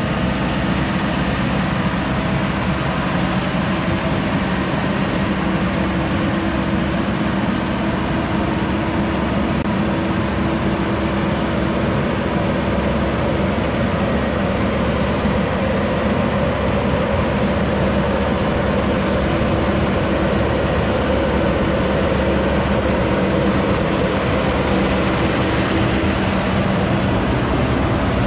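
Diesel farm machinery running steadily: a Gregoire G106 grape harvester driving up the vineyard track, with a tractor close by.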